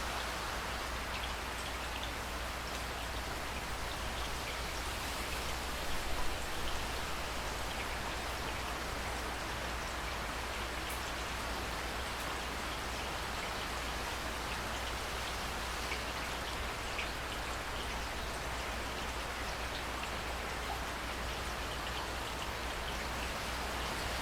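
Steady rainfall: a dense, even hiss of rain with scattered individual drop ticks, and a few louder drops about six seconds in.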